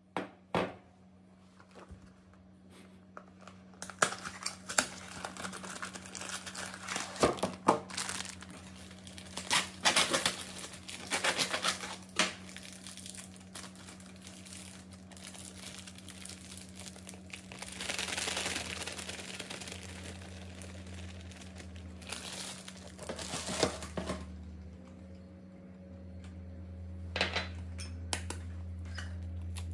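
Plastic bag of cake mix crinkling and tearing open, with bursts of handling, then dry cake mix and flour poured into a glass bowl with a soft hiss. A few sharp taps come near the end.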